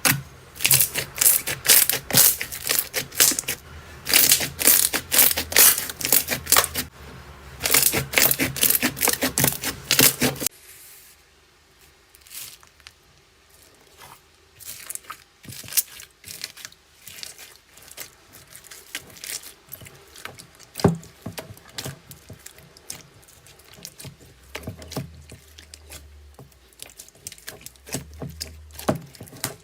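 Slime being squeezed and pressed by hand, giving dense crackling and popping clicks. About ten seconds in it turns abruptly quieter, with sparser clicks and pops.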